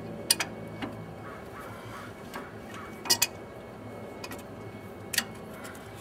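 Hand tools clinking against metal engine parts: about six sharp metallic clicks, several in close pairs, spread a second or two apart as work goes on at a stubborn bracket.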